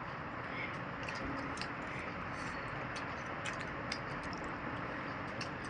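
Irregular small clicks and ticks of people eating momos by hand from paper plates, over a steady hiss.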